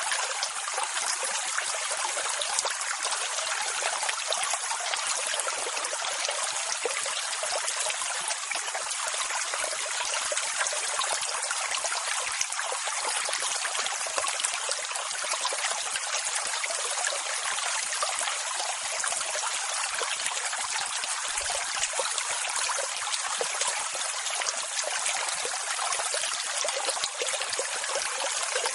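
Steady rushing water: an even hiss that never swells or falls away as separate waves would.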